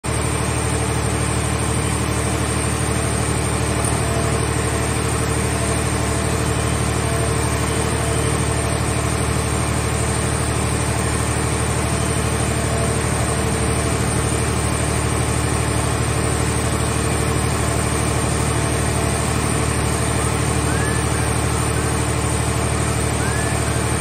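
Mobile car-shell baler's power unit running steadily, giving a constant low machine drone with no crushing or impacts.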